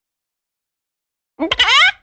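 Cartoon chicken sound effect: after a pause, one short, loud squawk that rises in pitch and warbles, starting near the end.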